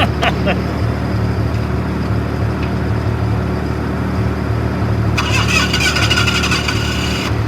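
Clarktor tug engine running steadily at low revs. About five seconds in, a high whirring starts and runs for about two seconds before stopping abruptly: a starter cranking the tug that has just stalled.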